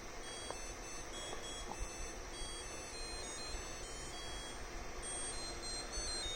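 Samsung DW80K705OUG dishwasher's end-of-cycle chime: a tune of short, high electronic beeps at changing pitches, signalling that the wash cycle is finished.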